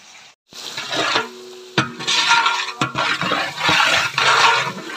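Sliced onions and green chillies sizzling as they fry in oil in a large metal biryani pot, stirred with a long iron ladle that scrapes through them and knocks against the pot a couple of times.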